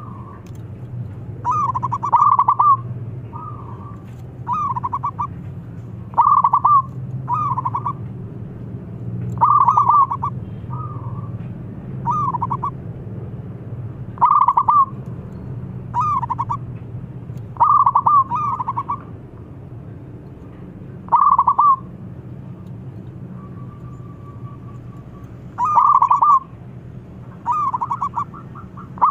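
Zebra dove (perkutut) cooing: about fifteen short, rolling coos, each around half a second long, repeated every one to two seconds, over a low steady hum.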